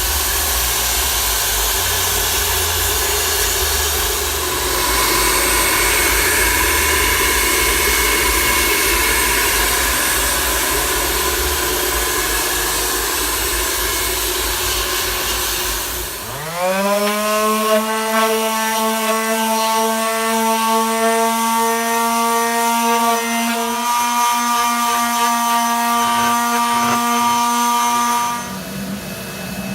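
Glass-bead blasting in a blast cabinet: a steady hiss of compressed air and bead media. About sixteen seconds in the hiss stops and a motor spins up with a rising whine, then runs steadily until it cuts out near the end.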